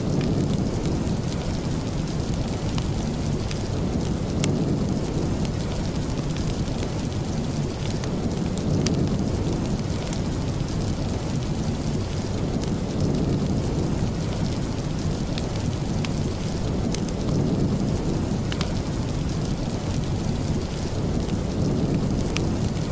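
Steady rain with a deep rumbling undertone that swells and fades every few seconds, and scattered sharp ticks.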